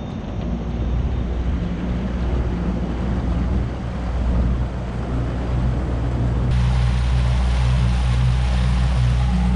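Hidea 60 hp four-stroke outboard motor running steadily as the boat moves, with water rushing along the hull. About six and a half seconds in the sound changes abruptly to a closer, steadier engine note with more hiss of churning wake.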